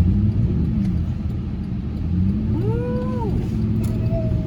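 Car rumbling along through snow, heard from inside the cabin, with a slow repeating hum that rises and falls about every two seconds. A short squeal rises and falls once about two and a half seconds in.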